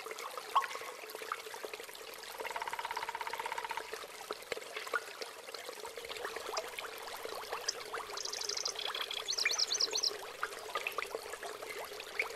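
Spring water falling in many fine streams and drops from a seeping rock face several metres high, splashing steadily onto wet ground and fallen leaves with lots of separate little drip splashes. A short buzzing trill a couple of seconds in and a few high chirps later sit faintly over it.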